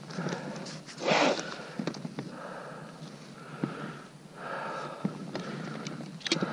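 A skier breathing hard after a fall and slide on a steep slope, the repeated breaths picked up close by a helmet camera. About a second in comes a louder rush of noise, with a sharp scrape or rustle near the end.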